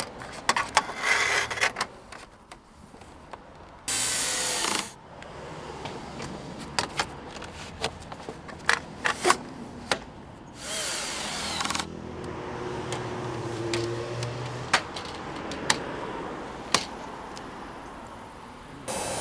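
Cordless drill-driver screwing the aluminium cover-frame pieces of a roof window in place: two short runs of about a second each, about four seconds in and again about eleven seconds in, with sharp clicks and knocks of the metal parts being handled in between.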